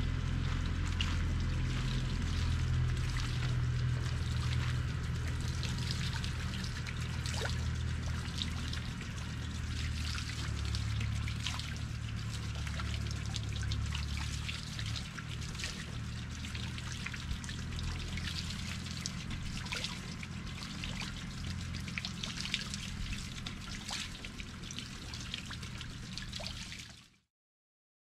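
Water trickling and splashing at a garden water wheel, a steady hiss dotted with many small drip-like splashes over a low rumble. The sound cuts off suddenly near the end.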